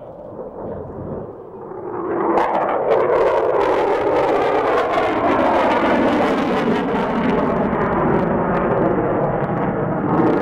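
F-22 Raptor fighter jet's engines in a demonstration flight. The jet noise swells over about the first two seconds, then holds loud and steady with a crackling edge as the aircraft manoeuvres.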